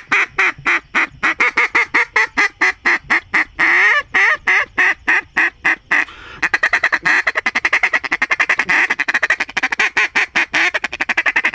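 Hand-held duck call blown to imitate a hen mallard: a run of separate quacks, including one longer drawn-out quack about four seconds in. After a short break about six seconds in comes a fast, steady feed-call chatter.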